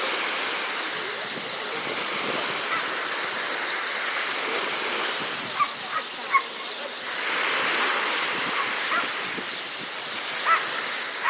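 Sea waves washing onto a beach: a steady rush that swells for a couple of seconds about two-thirds of the way through. A few short, sharp high sounds stand out around the middle and again near the end.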